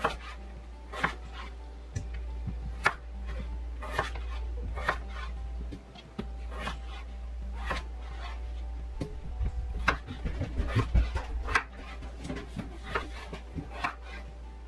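Kitchen knife chopping peeled raw potatoes on a wooden cutting board: irregular sharp knocks of the blade hitting the board, coming faster and closer together in the second half, over a low steady hum.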